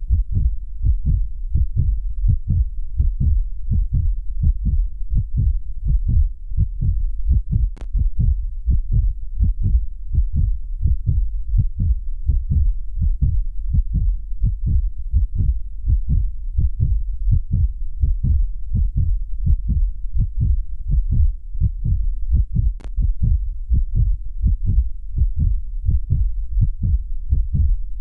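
Human heartbeat: a steady, regular lub-dub pulse of deep, low thumps.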